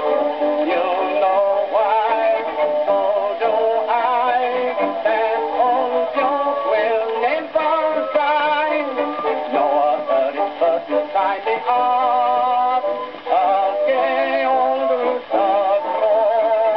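1922 acoustically recorded music-hall novelty record played on an EMG gramophone: a man singing with vibrato over instrumental accompaniment.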